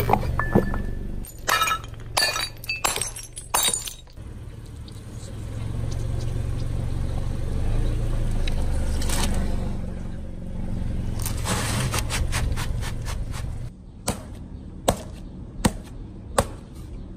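A car tyre rolls over a row of cups, which break with a quick run of sharp cracks. The car's engine then rumbles low as the tyre presses down on a pineapple, with crunches as the fruit gives way. Near the end come a few separate sharp knocks.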